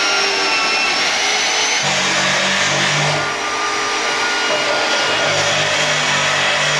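DeWalt magnetic drill press running steadily, its cutter boring holes through a steel frame rail, with a constant high motor whine over a harsh cutting noise.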